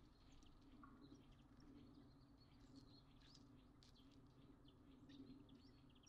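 Near silence: faint, scattered bird chirps over a low steady hum.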